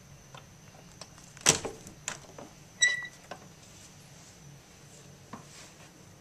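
A few sharp clicks and knocks, the loudest about a second and a half in, with a short metallic clink that rings briefly near three seconds.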